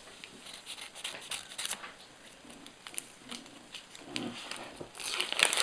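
Scissors cutting open a sticker packet, with the wrapper crinkling in short crisp bursts; louder crinkling and snipping near the end.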